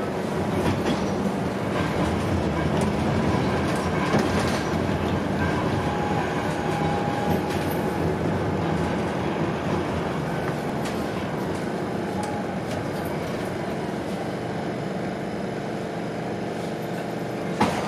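Electric street tram running along its rails, heard from inside the front of the car: a steady rolling rumble with a few sharp clicks from the wheels on the track, growing a little quieter toward the end.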